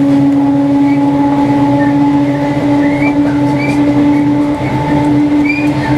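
Inside a ScotRail Class 318 electric multiple unit: a steady, even hum with several fixed pitches over a noisy rumble, with a few faint, short squeaks.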